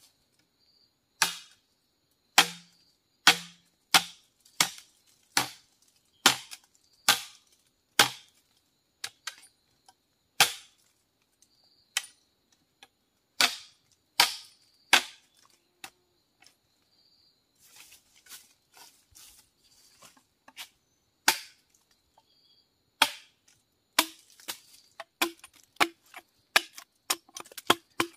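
Machete blade chopping into green bamboo: sharp single strikes about one a second, a pause with a few softer knocks, then a quicker run of about two strikes a second near the end, each with a short hollow ring, as the blade is driven into the end of a bamboo tube to split it.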